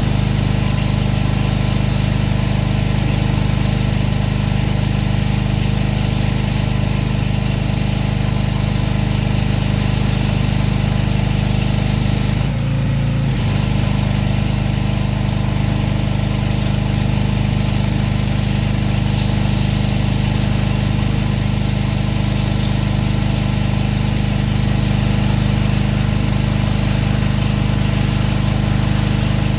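Pressure washer's gas engine running steadily under load, with spray hiss, and a brief change in its note about 13 seconds in.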